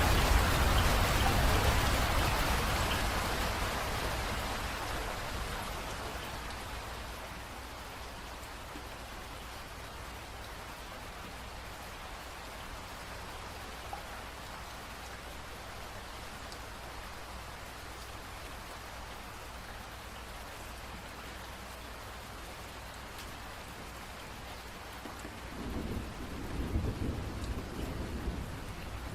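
Rain falling: heavy at first, easing over several seconds to a steady, lighter patter. Near the end a low rumble of thunder swells up.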